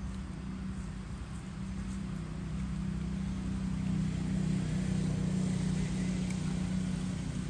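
A low steady motor hum that grows louder for a few seconds around the middle.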